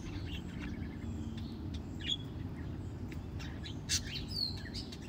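Faint, steady low rumble of background noise with a few short, high chirps; one chirp falls in pitch about four and a half seconds in.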